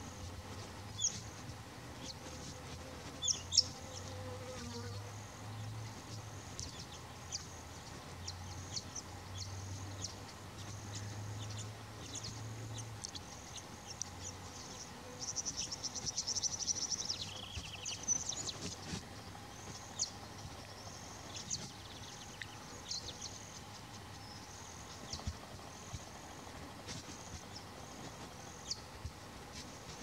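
Insects buzzing and chirping: a high, pulsing insect drone dotted with many short high chirps, with a denser buzzing trill around the middle. A low buzzing hum runs through the first half, and two sharp clicks come a few seconds in.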